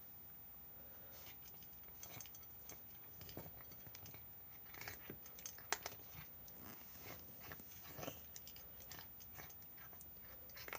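A cat eating its food: faint, irregular chewing clicks that start about two seconds in, the loudest a little past halfway.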